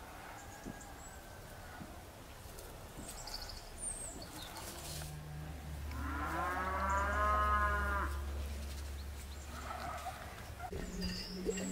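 A cow mooing: one long drawn-out call that starts about five seconds in, swells and fades over several seconds.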